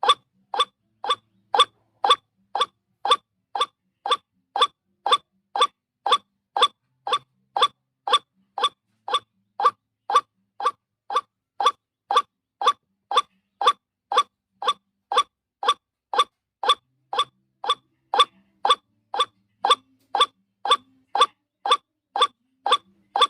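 White-breasted waterhen (ruak-ruak) lure call: one short, harsh note repeated at an even pace, about two and a half times a second, without a break.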